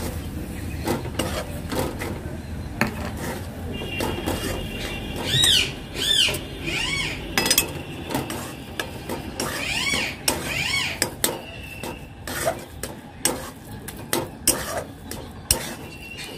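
A metal spatula scrapes and taps against a metal kadai in quick, irregular strokes, stirring a crumbly chhana and sugar filling. In the middle, several short, high calls from an animal rise and fall, louder than the scraping.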